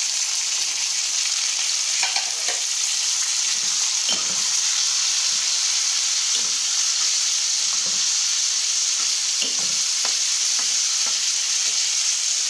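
Onions, tomatoes and green chillies sizzling steadily in hot oil in a metal pot, with a metal spoon stirring and scraping against the pot every second or two.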